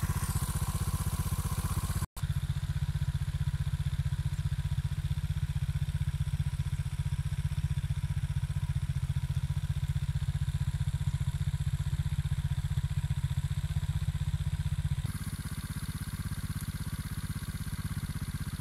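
Beta Alp 200's single-cylinder four-stroke engine idling steadily. There is a very brief break about two seconds in, and the sound is a little quieter for the last few seconds.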